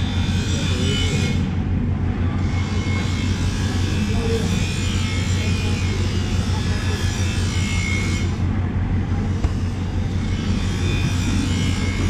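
A steady low machine hum under a constant background din, with no distinct cutting strokes standing out.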